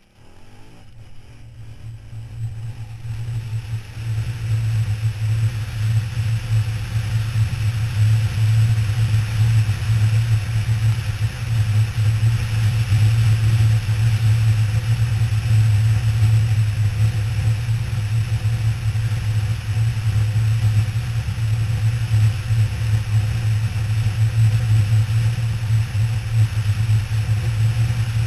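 KTM 990 Adventure R's V-twin engine running at a steady cruising speed, heard through a helmet-mounted camera with wind rushing over it. The sound fades up over the first few seconds, then holds as a steady low drone under the wind noise.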